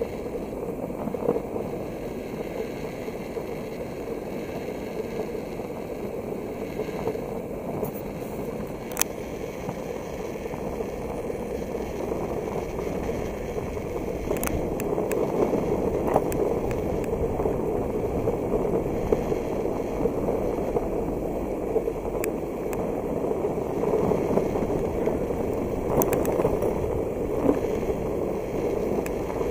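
WALNUTT SPECTRA Silver electric skateboard rolling over pavement: a steady rolling rumble with a few sharp clicks scattered through. It grows a little louder about halfway through.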